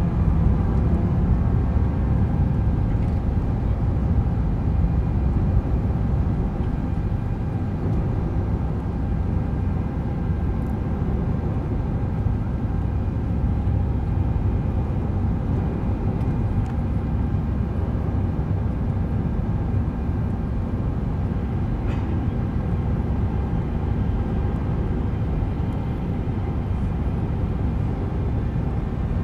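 Jet airliner's engines and airflow heard from inside the cabin during the climb after takeoff: a steady low roar with several steady whining tones from the engines.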